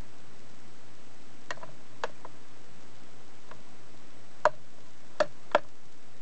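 The one-handle master controller lever of a TOMIX N-DU202-CL model-railway power unit clicking through its notches: a series of sharp clicks, the last three, near the end, the loudest.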